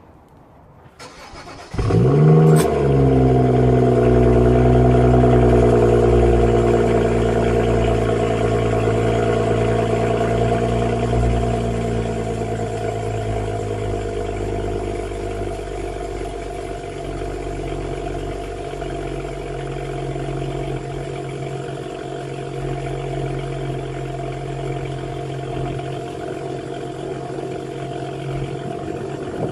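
BMW 335i's turbocharged 3.0-litre straight-six engine starting about two seconds in, flaring up in revs and then settling into a steady idle that slowly grows quieter.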